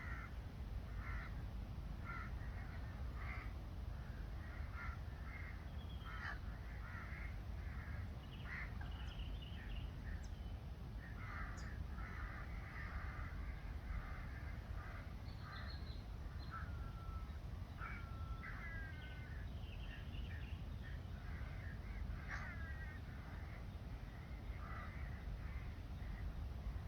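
Birds calling throughout with many short, harsh, repeated calls, cawing and chattering, and a few gliding notes, over a steady low rumble.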